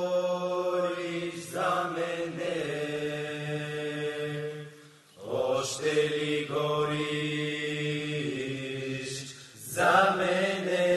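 Men's voices singing a Bulgarian folk song in long, held chant-like phrases, breaking for breath about five seconds in and again near the end.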